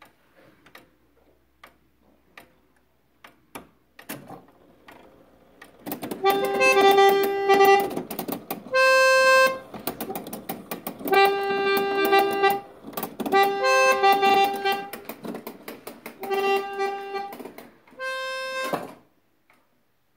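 Emilian Wehrle four-horn trumpeter clock going off: its bellows-blown reed horns play a tune in six short phrases of held notes. The mechanism clicks a few times for about six seconds before the first note.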